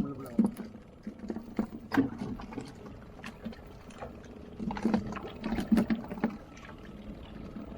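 Fishing boat's engine running steadily, with scattered sharp knocks and thumps on board.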